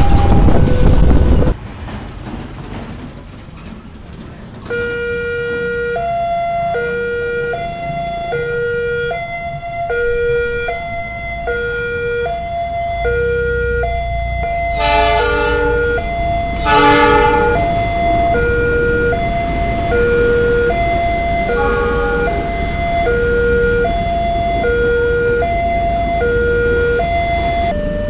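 A train passes close by for about the first second and a half, then cuts off abruptly. From about five seconds in, a railway level-crossing warning alarm sounds an electronic two-tone signal. It alternates steadily between a high note and a low note, each held under a second. Two short, louder blasts come about halfway through.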